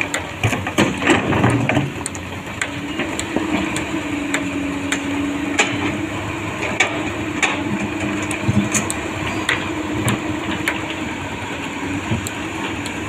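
Komatsu PC200 hydraulic excavator's diesel engine running steadily while its bucket scrapes and knocks against a pile of rocks, with scattered clacks of stone. The clatter is loudest in the first couple of seconds.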